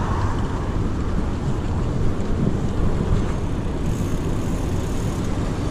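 Wind rushing over the microphone of a camera riding on a moving bicycle, with a steady low rumble from the ride.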